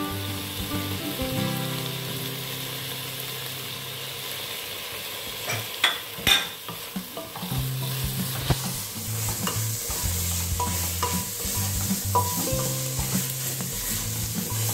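Soya chunk masala frying and sizzling in a pressure cooker while it is stirred, with a few sharp knocks of a wooden spatula against the pot about six seconds in.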